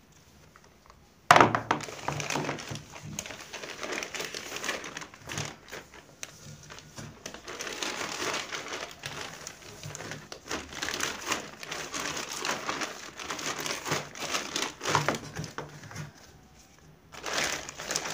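A plastic bag of balloons crinkling and loose latex balloons rustling as they are handled. The crackling starts suddenly about a second in, runs on with many small clicks, eases for a moment shortly before the end, then comes back.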